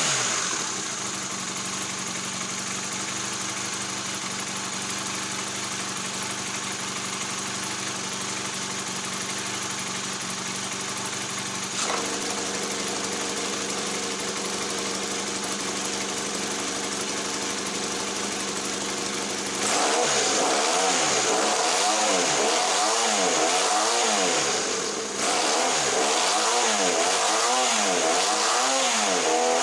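Honda CB400D Super Hawk III's parallel-twin engine running through a nearly straight-piped exhaust. It idles steadily, and about two-thirds of the way in it gets louder and is revved up and down in repeated quick blips.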